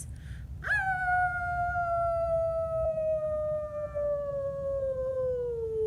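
A dog howling: one long howl that swoops up quickly at the start, then slides slowly and steadily down in pitch.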